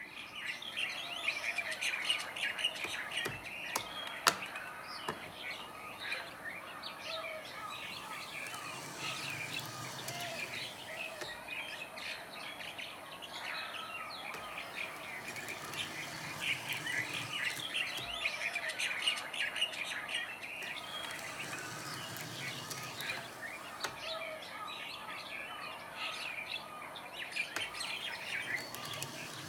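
Many small birds chirping and twittering continuously, played back as a sound effect, with a single sharp click about four seconds in.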